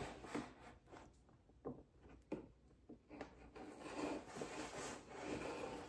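Cardboard box being handled and opened: faint, intermittent rubbing and scraping of the lid and packaging, with a few light knocks.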